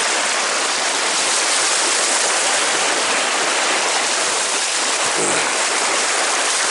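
Mountain trout stream water flowing, a steady, even rush of water noise.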